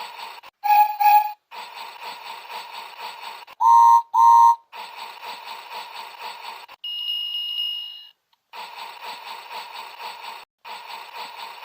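Battery-powered Thomas toy train running on the Takara Tomy 'Oshaberi Ippai Guruguru Senro' talking track, its motor whirring with steady clicking, broken by short gaps. The track's built-in speaker plays electronic sound effects: a double beep about a second in, two short tones bending upward around four seconds, and a high steady tone near seven seconds that fades away.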